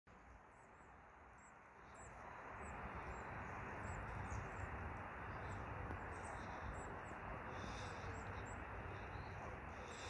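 Small birds chirping in short repeated calls over a steady rushing outdoor background with a low rumble, which grows louder about two seconds in.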